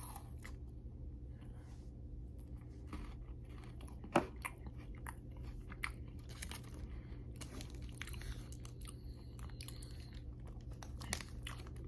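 A person chewing a bite of Kit Kat chocolate wafer bar: faint, irregular crisp crunches, with one louder crunch about four seconds in, over a steady low hum.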